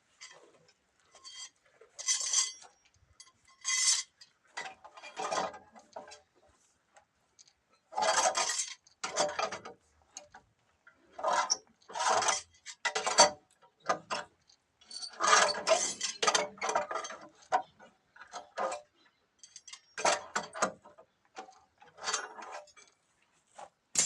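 Irregular bursts of metal clinking and scraping from hand construction work, each lasting about half a second to a second with short pauses between.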